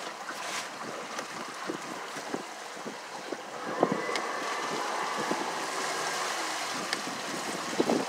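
Wind buffeting the microphone and water rushing and slapping against the hull of a small boat under way on choppy sea, with scattered light knocks. It grows louder for a few seconds in the middle.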